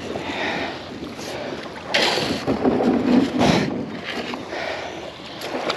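Kayak moving through shallow water, with a few short swishes of water and gear handling, and one sharp knock near the end.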